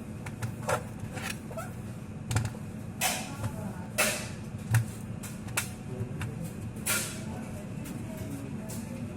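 Irregular plastic clicks and knocks from handling a Lenovo G50 laptop while its battery is removed or fitted, mostly in the first seven seconds, over a faint steady hum.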